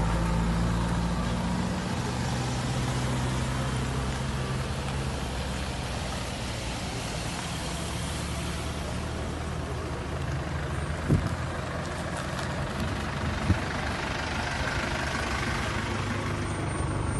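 Ice cream vans driving slowly past one after another. The engine of the nearest van is loud at first and fades after about five seconds, leaving a steady traffic hum, with two sharp knocks around the middle.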